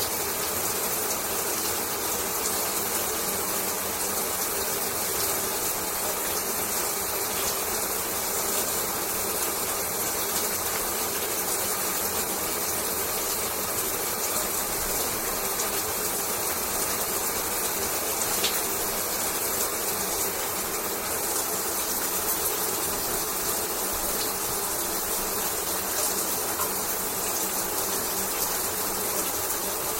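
Shower running: a steady, unbroken spray of water, even in level throughout.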